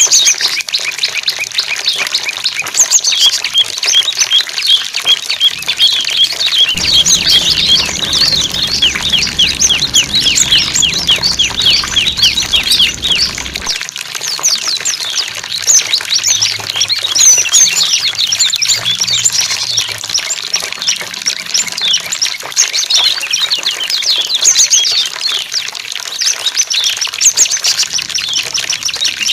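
Small songbirds chirping and trilling in a dense run of short, quick notes over the steady rush of flowing water. A low hum joins from about seven to fourteen seconds in.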